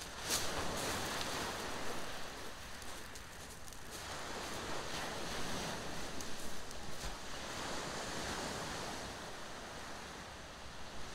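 Small waves breaking and washing up a shingle beach in a steady, surging rush. A few crunching footsteps on the pebbles can be heard near the start.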